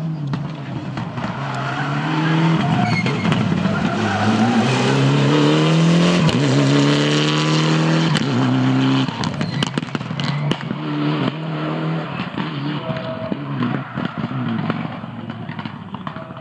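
Mitsubishi Lancer Evolution rally car's turbocharged four-cylinder engine at full throttle, its pitch climbing and dropping with several quick gear changes as it comes past, loudest in the middle. A run of sharp pops and cracks follows as it lifts off, then the engine pulls away again and fades.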